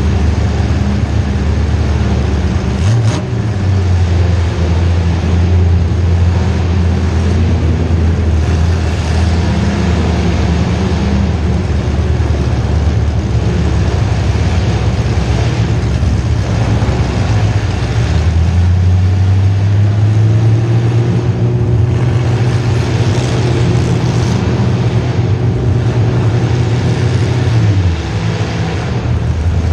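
Demolition derby car's small-block Chevy V8 running hard. It revs up about three seconds in, climbs again a little past halfway, and drops off near the end.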